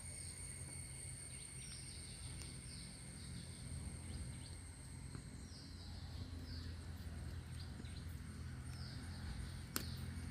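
Outdoor ambience: a steady low rumble with a small bird repeating short, high falling chirps in little runs, and a single sharp click near the end.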